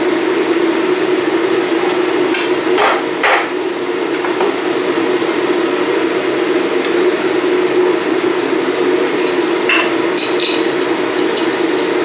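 A steady hum runs throughout, with a few sharp knocks on a wooden cutting board about two to three seconds in and again near ten seconds as a cloth spice bag is handled and tied.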